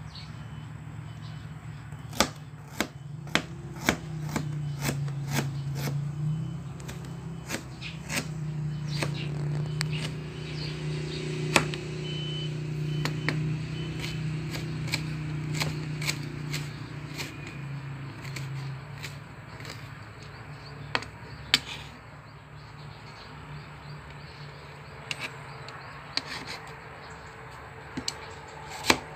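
Kitchen knife slicing ginger and onion on a plastic cutting board: irregular sharp knocks of the blade meeting the board, roughly one or two a second. A steady low hum sits behind it for the first two-thirds.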